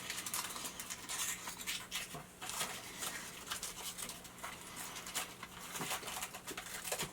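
Soft, irregular mouth clicks and smacks of a person chewing and working squares of pepper-laced white chocolate around the mouth.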